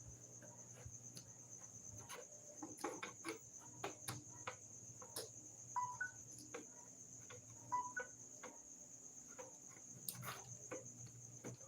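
Insects chirring steadily in a high, even tone, with scattered small clicks and taps and two brief chirps near the middle.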